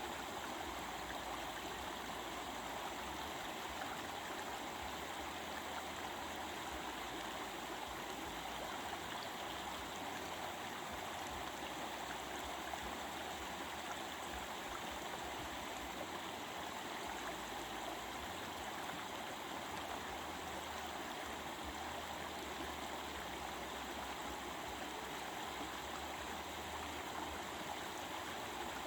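Stream water flowing with a gentle, steady babbling. The rush stays even throughout.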